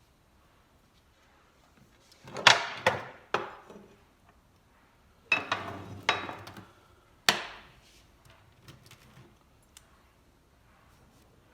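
Hand tools knocking and clanking on the parts of a starter motor being worked on, six or so sharp knocks in two groups, each ringing briefly.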